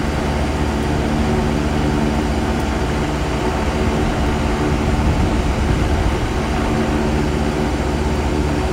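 Steady drone of rooftop HVAC units and an exhaust fan running: a constant low hum with several steady tones under an even rush of air.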